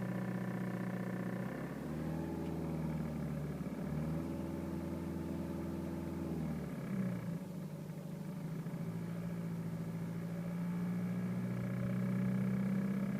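BMW 320d E92's four-cylinder diesel engine running in the car's cabin, its speed changing about two seconds in and swelling twice before settling and slowly climbing. The owner is demonstrating a vibration/rattle around 2000 rpm that he hears from the passenger footwell, in gear or in neutral.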